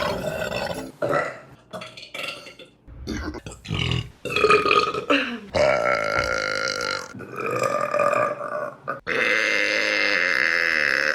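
Women burping, one burp after another: several short burps in the first few seconds, then longer drawn-out ones, the last and longest lasting about two seconds near the end.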